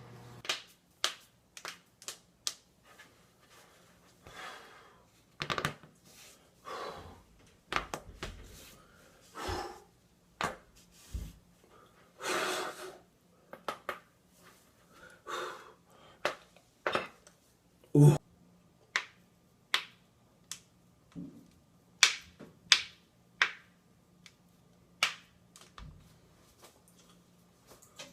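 A person's back cracking under a chiropractic-style manual adjustment: many sharp pops at irregular intervals, the loudest about 18 seconds in, with breaths in between.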